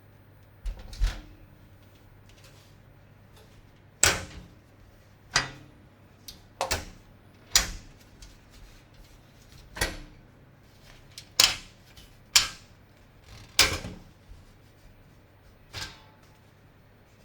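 PC components being handled and fitted together by hand: about a dozen sharp clicks and knocks of hard plastic and metal parts at irregular intervals, over a faint low hum.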